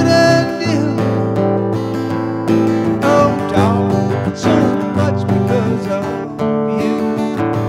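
Acoustic guitar strummed and picked, playing an instrumental passage with no singing.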